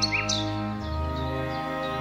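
Small songbirds chirping and twittering in quick high notes, thickest in the first half, over background music of slow held chords that change just under a second in.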